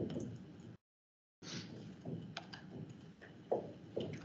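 Faint room noise with a few scattered light clicks and taps. About a second in, the audio cuts out to dead silence for about half a second.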